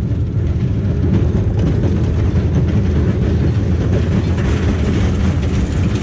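Cars of a small runaway-mine-train coaster running along the track, heard from a rider's seat: a steady, loud low rumble with light clattering.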